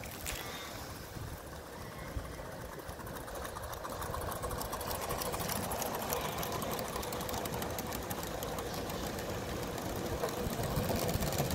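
Live steam garden-scale model train, a Bowande LMS Jubilee steam locomotive hauling a rake of carriages, running past: a fast rhythmic clatter from the train on the track, growing louder about four seconds in as the carriages pass close.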